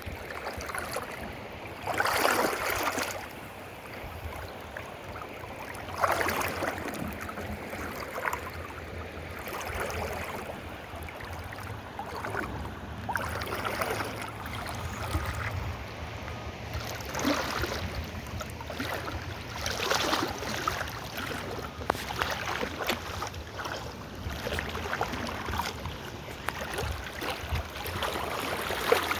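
Steady rushing of river water, with several louder swells of noise.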